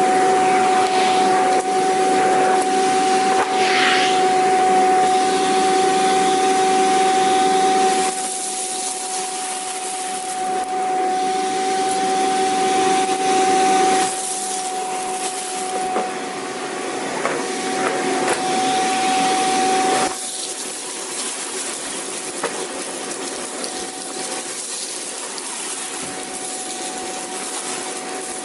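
Vacuum cleaner running with a steady motor whine over dense rushing air. The loudness drops in steps a few times, and about two-thirds of the way through the whine and the rush both become quieter.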